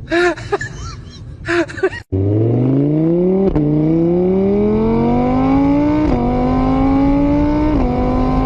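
A few short cat meows, then an abrupt switch to a motorbike engine sound accelerating through the gears. Its pitch climbs and drops back at three shifts before holding steady.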